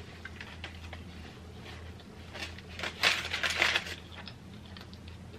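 Close-up chewing with small mouth clicks, then aluminium foil crinkling loudly for about a second as a foil-wrapped burger is put down on a plate.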